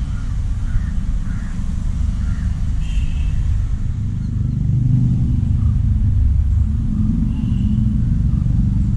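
Steady low rumble of wind buffeting the camera microphone, swelling a little past the middle.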